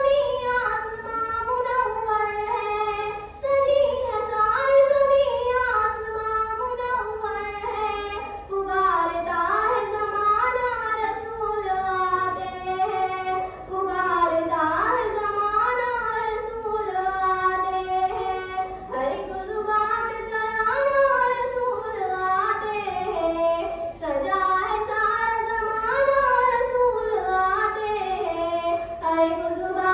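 A girl singing a naat, a devotional song in praise of the Prophet, unaccompanied into a microphone: one voice in long melodic phrases with gliding, wavering notes.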